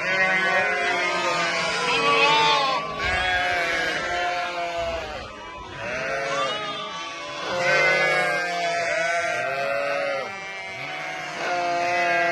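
A flock of sheep bleating, many calls overlapping one another.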